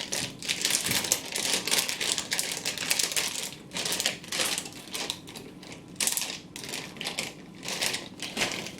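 Crinkling and rustling of a Twisties chip packet being pulled and torn open, in irregular crackly bursts that go on and off.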